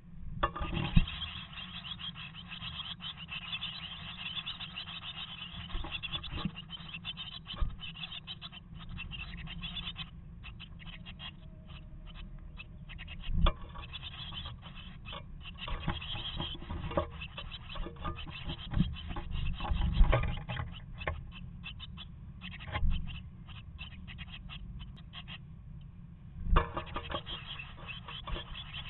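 Tit nestlings shuffling in their moss-and-feather nest inside a wooden nest box: a continuous close scratching and rustling, with a few louder bumps against the box.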